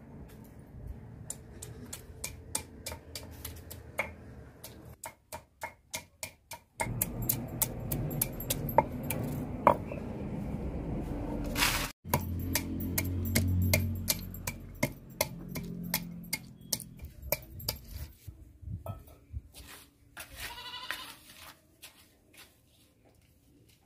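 Stone pestle striking a flat grinding stone, cracking small snail shells with repeated sharp knocks. A goat bleats once near the end.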